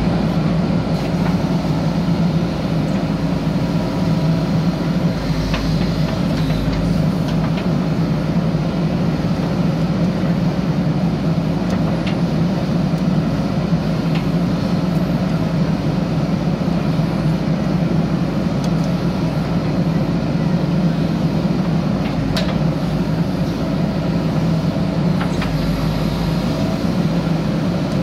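JCB 3DX backhoe loader's diesel engine running steadily at working revs while the backhoe arm is worked, with a few faint clicks and knocks over it.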